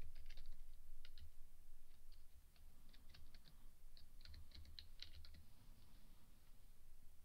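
Computer keyboard typing: short irregular runs of key clicks with pauses between them, over a faint low hum.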